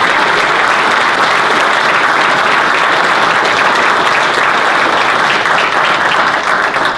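Audience applauding, many people clapping steadily together.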